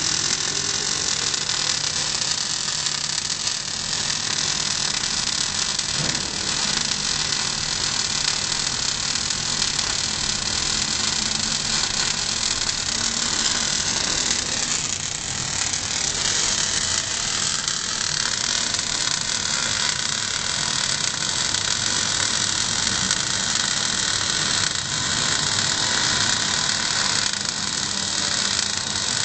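MIG (semi-automatic) welding arc crackling steadily as an overhead bead is laid on thick steel plate.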